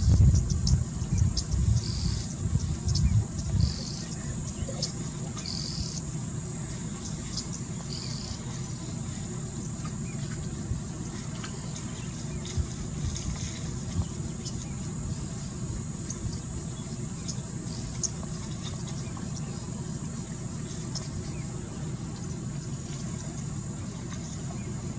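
A steady high drone of insects such as crickets or cicadas, with short bird chirps repeating every second or so over the first several seconds. Loud low thumps and rumbles sound during the first four seconds, then a steady low background.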